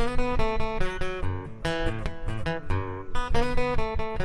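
Acoustic guitar strumming chords, an instrumental break between sung lines of a song.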